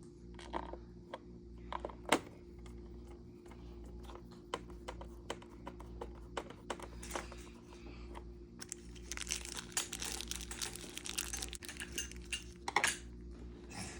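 Small plastic screw-kit case and its tiny screws being handled: scattered sharp clicks and taps, then about four seconds of dense crinkly rattling from about nine seconds in, over a steady low electrical hum.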